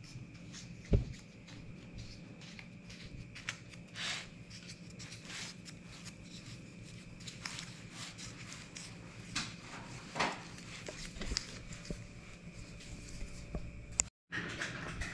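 Quiet handling sounds of fingers crimping pastry edges on foil pie trays, with occasional soft knocks and rustles, over a steady faint hum.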